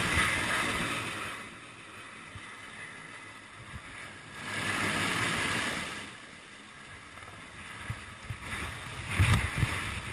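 Rushing wind noise on the microphone of a camera aboard a hovering rescue helicopter, swelling loudly at the start and again about halfway through, with a few bumps and knocks near the end.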